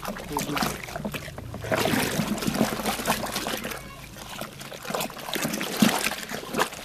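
A hand sloshing and stirring a milky mixture of calcium carbonate and water in a large basin, making irregular splashes and trickles of liquid.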